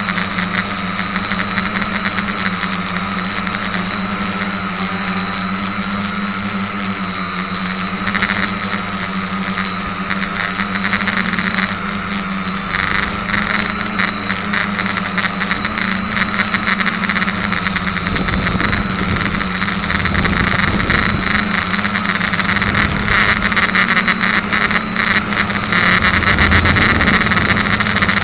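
SK450KK2 quadcopter's electric motors and propellers whining steadily, heard up close from the onboard camera, the pitch wavering slightly with throttle. A crackling rush of air noise builds through the second half and makes it louder toward the end.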